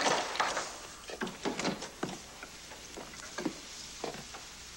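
A wooden door being handled with a clatter of knocks as it is opened, followed by scattered light knocks and footfalls on a wooden floor, over a faint steady hiss.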